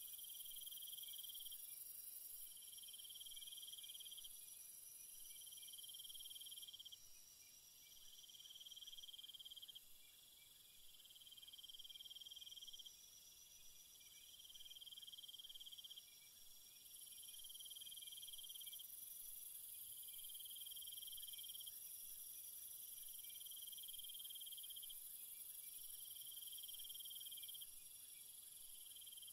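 Near silence: faint room tone with a thin, steady high-pitched tone that shifts abruptly every few seconds.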